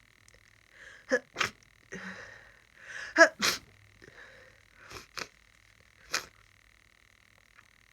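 A person sneezing in a fit, several sharp sneezes in a row with the loudest just past the middle, from a head cold.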